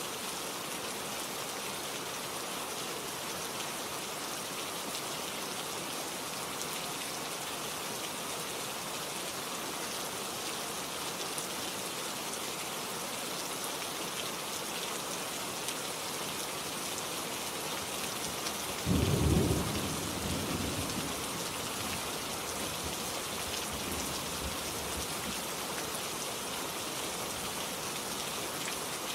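Steady rain falling, with one sudden thunderclap about two-thirds of the way in that rumbles away over a couple of seconds.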